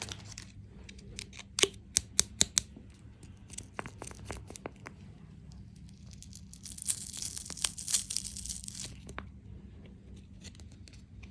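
Plastic wrapper of a Kinder Joy egg being handled and torn open: scattered crackles for the first few seconds, then a longer crinkly tear lasting about two seconds past the middle.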